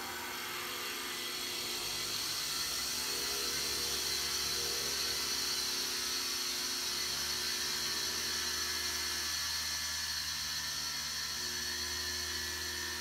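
Flex shaft rotary tool running at a steady speed, its bit grinding a hole into a pebble under water: a steady whir with a high grinding hiss.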